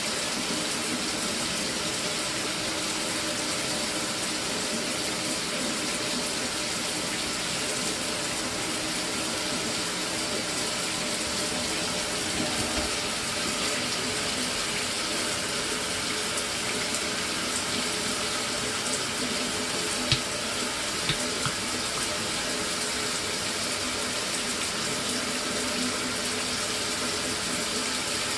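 Mira electric shower running, water spraying steadily from the head without cutting out: the newly fitted solenoid valve is holding the flow. A few short clicks come about two-thirds of the way through.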